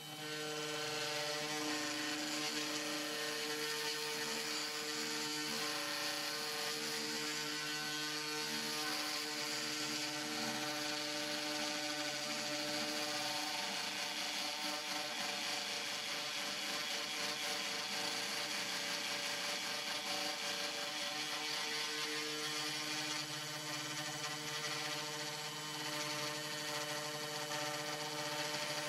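Sainsmart 3018 PROVer CNC router's spindle motor running at a steady whine and hum while its pointed engraving bit carves into a board.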